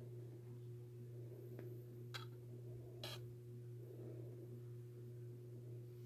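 Steady low electrical hum with a few light clicks between about one and a half and three seconds in, the last the loudest, as a plastic ruler is picked up and handled against a jewelry display.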